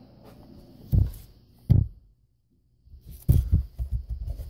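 Dull low thumps and knocks: two single ones in the first two seconds, then a quick irregular run of them from about three seconds in.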